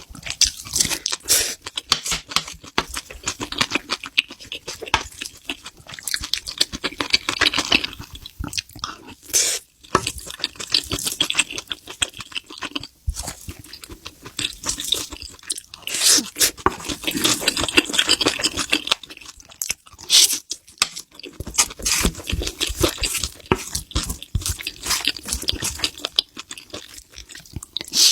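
Close-miked mouth sounds of someone eating seafood: chewing and crunching, a dense, irregular run of wet clicks and crackles.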